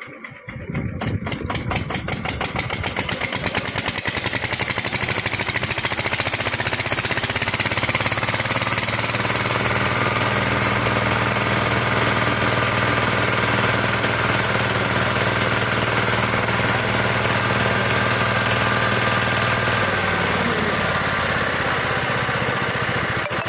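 Diesel engine driving a sugarcane crushing machine starts up about half a second in, picks up speed over the first few seconds, then runs steadily as cane is fed through the rollers.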